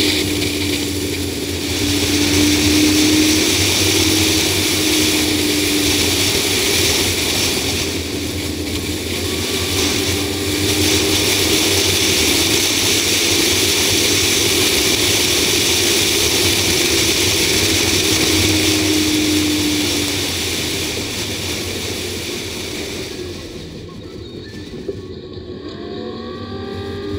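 Wind and road noise rushing over a hood-mounted camera as a 2004 Ford Explorer V8 drives at speed, with the engine's faint hum underneath. Near the end the noise drops as the vehicle slows, then the engine note begins to rise again.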